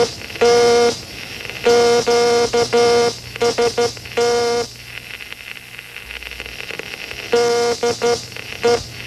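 Old-time spark transmitter sending Morse code: a buzzy pitched tone keyed on and off in dots and dashes. It breaks off about halfway, leaving crackling static, and the keying starts again near the end.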